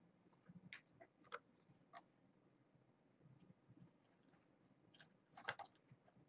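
Near silence broken by faint, scattered light clicks and scratches from kittens playing, a few in the first two seconds and a short, louder cluster about five and a half seconds in.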